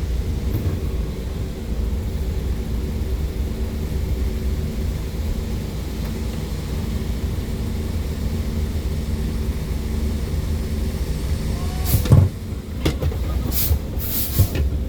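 A motor vehicle's engine running steadily with a low drone, with a few sharp knocks or clatters near the end.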